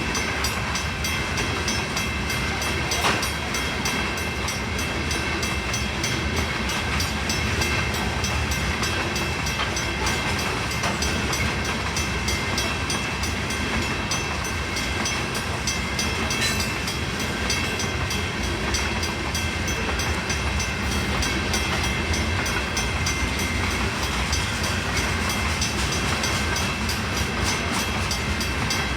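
Freight train rolling past a grade crossing: a steady, continuous rumble of wheels on the rails, with a few steady high tones over it.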